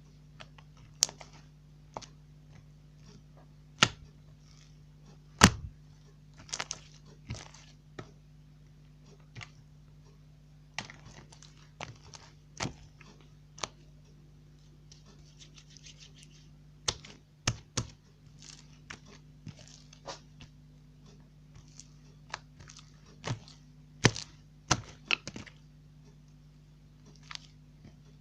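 Slime being squeezed and stretched by hand: irregular sticky clicks, pops and short crackles, a few of them sharper snaps, over a steady low hum.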